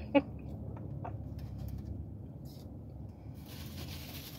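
Steady low rumble inside a car cabin while someone chews quietly. There is one sharp click just after the start, and a rush of hiss begins about three and a half seconds in.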